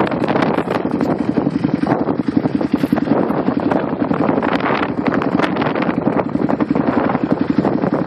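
Full-size Ford Bronco's engine working steadily under load as it climbs a steep dirt hill track, with wind buffeting the microphone.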